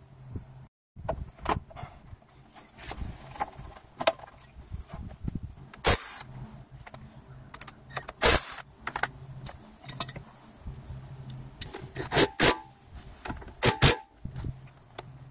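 Cordless power driver whirring in short runs as screws on the radiator's side brackets are driven out and in, with sharp metallic clicks and clanks of the tool and parts being handled; the clicks are the loudest sounds.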